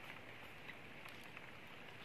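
Quiet outdoor background: a faint steady hiss with a few soft clicks as sea snail shells are handled and eaten.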